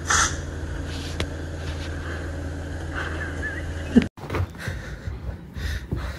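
Steady low hum of an open refrigerator running, with a cat's short meow right at the start. About four seconds in the hum cuts off and is replaced by scattered soft noises from a dog moving about.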